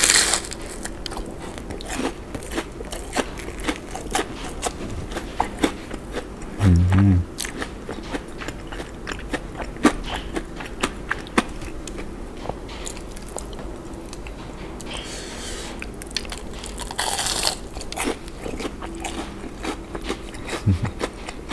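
Close-miked crunchy bite into a crispy, crumb-coated deep-fried shrimp donut, followed by continual crisp crunching and chewing. There is a short low hum about seven seconds in.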